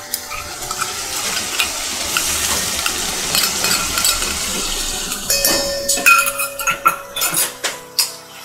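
Green chilli paste dropped into hot oil with onion and garlic in a steel kadhai, sizzling, as a spoon scrapes it out of a steel bowl. From about halfway through, the spoon clinks and taps against the steel bowl and pan with short metallic rings.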